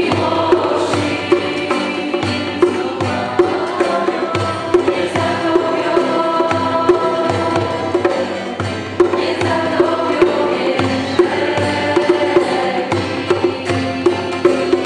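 A congregation singing a worship song to acoustic guitar, with a steady percussive beat of sharp strokes about every three-quarters of a second.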